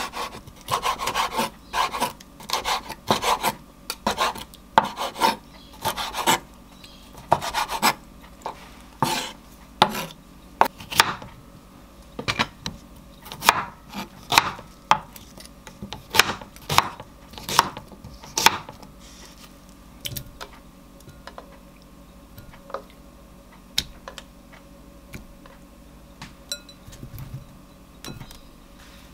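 Chef's knife cutting a boiled octopus tentacle and then a cucumber on a wooden cutting board: a long run of irregular knocks as the blade strikes the board, closely spaced at first and sparse near the end.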